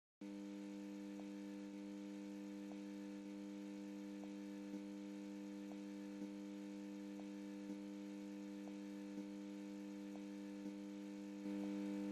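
Steady electrical hum of a lit neon sign, with faint ticks at regular intervals, growing a little louder near the end.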